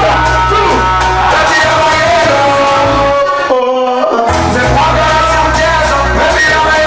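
Loud music with a sung melody over a heavy bass line; the bass drops out for about a second midway, then comes back in.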